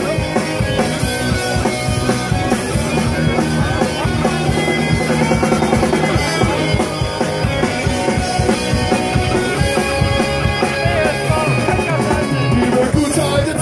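Live rock band playing loudly, with a driving drum kit and electric guitars.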